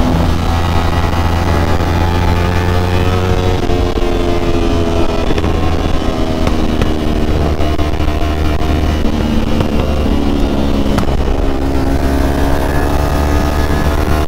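Kawasaki ZX-25R's 250 cc inline-four engine running while riding, with steady low wind rumble. The engine note holds and then steps to a new pitch a few times.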